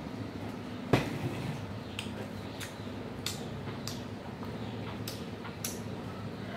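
A plastic jug set down on a table with a sharp knock about a second in, then scattered short crisp crackles as a crusty baguette is torn and chewed, over a low steady hum.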